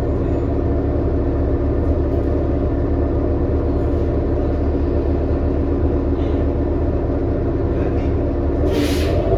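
Interior drone of a 2018 New Flyer XD40 city bus's diesel drivetrain, running steadily under way. A short hiss of air sounds near the end.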